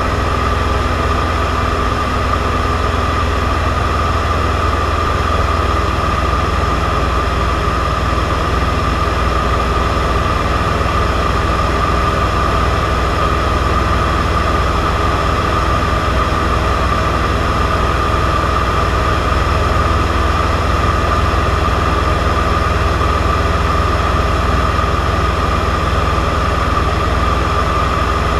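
Cessna 172's piston engine and propeller running steadily in flight, heard from inside the cabin as a loud, unchanging drone with a low rumble and a steady mid-pitched tone.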